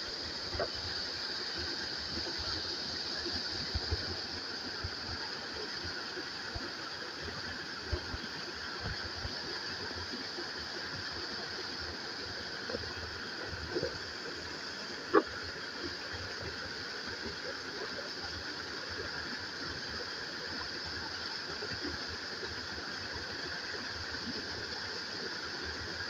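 Steady rush of a waterfall pouring over a rock lip, with a few faint knocks and one short sharp sound about fifteen seconds in.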